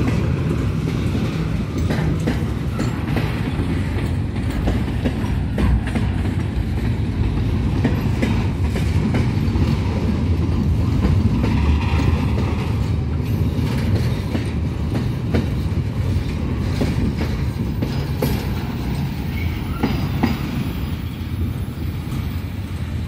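Loaded container freight train rolling past: a steady low rumble of the flatcar wheels on the rails, with irregular knocks as the wheels cross rail joints, easing off slightly near the end as the last wagons go by.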